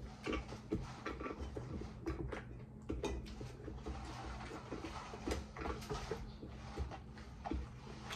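Close-up eating sounds: chewing and mouth smacks, fingers working rice on a plate, and irregular soft clicks and taps of a spoon against a bowl, over a low steady hum.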